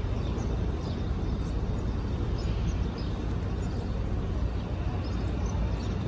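Steady low rumble of outdoor background noise, with a few faint scattered ticks higher up.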